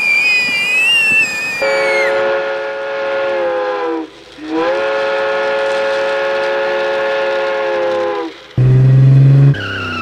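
Train horn sound effect for a toy freight train: two long, steady blasts with a short break about four seconds in, following a wavering high whistle tone at the start. Near the end, a short, loud, low buzz.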